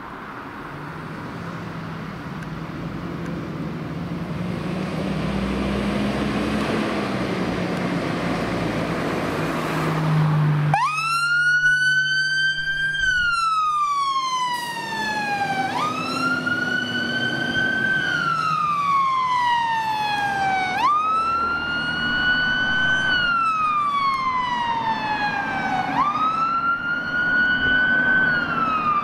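Fire engine's diesel engine running and growing louder as it pulls away. About eleven seconds in, its siren starts on wail: each cycle rises quickly and then falls slowly, repeating about every five seconds.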